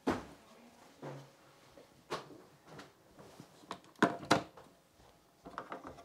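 A few sharp plastic clicks and knocks from the capsule holder of a Dolce Gusto Genio S pod coffee machine being unlatched and pulled out. The loudest are two quick clicks near the middle.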